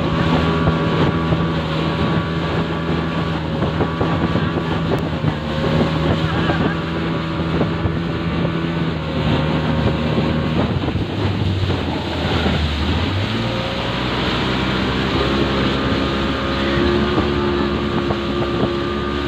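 Small speedboat's engine running steadily under way, with water rushing past the hull and wind on the microphone. The engine note shifts a little past the middle, then holds steady again.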